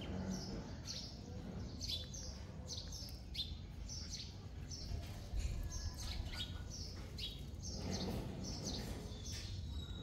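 Small birds chirping: short, high, downward-sliding chirps about twice a second, over a steady low background rumble.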